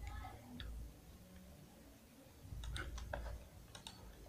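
Faint clicks of a computer mouse and keyboard while working in 3D software: a handful of scattered clicks, most of them in the second half, over a low background hum.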